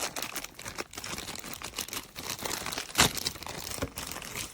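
Plastic packaging crinkling and crackling as it is handled, in irregular rustles with one louder crackle about three seconds in.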